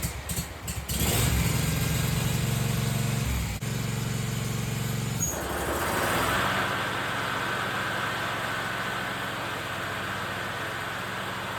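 Toro Proline walk-behind mower engine catching and settling into a steady run. About five seconds in, a steady rushing sound with a faint high whine joins as the blades under the repaired deck are engaged and spinning.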